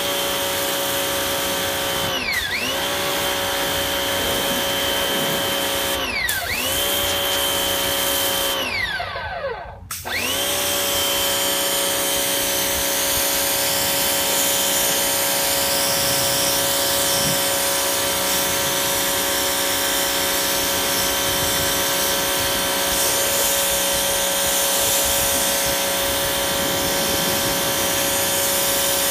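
Force 1800 electric pressure washer's motor and pump running with a steady high whine over the hiss of the fan-nozzle spray. About two and six seconds in the pitch dips and recovers; about nine seconds in it winds down and stops briefly, then starts again and runs steadily.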